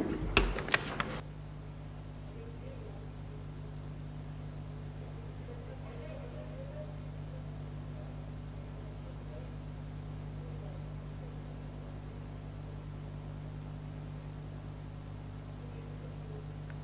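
Steady low electrical hum from a broadcast feed that has gone to colour bars. In the first second or so there are a few clicks, a short low knock and the last of a voice.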